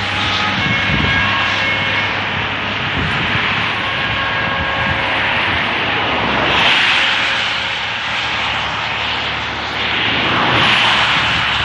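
Road traffic on a wet road: steady tyre hiss and engine noise, swelling as vehicles pass close about six and a half seconds in and again near the end.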